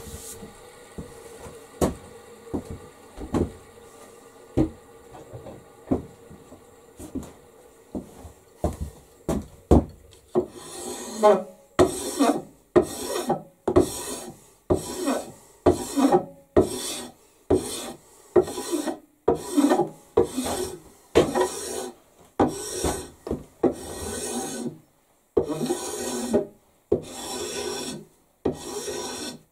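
A few scattered light knocks and clicks, then from about ten seconds in, steady, evenly paced strokes of a hand file rasping along a wooden axe handle, a little over one stroke a second, as the mounted handle is thinned down.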